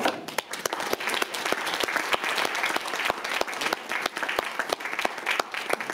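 Audience applauding: many people clapping at once, a dense run of claps that keeps on steadily.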